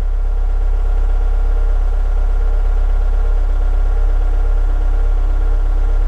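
Skid steer loader's diesel engine idling steadily, heard from inside the operator's cab as a constant deep hum.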